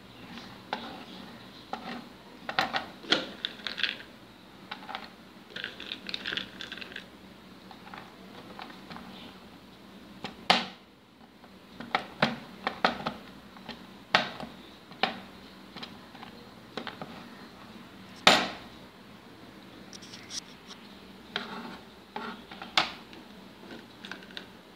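Kitchen knife chopping almonds and cashews on a plastic cutting board: irregular clicks and taps of the blade through the nuts onto the board, with two louder knocks.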